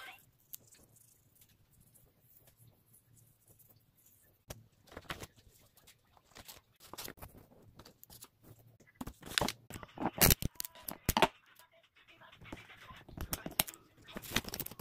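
Sheets of paper being handled close to the microphone: scattered rustles, crinkles and taps, sparse at first and busier in the second half.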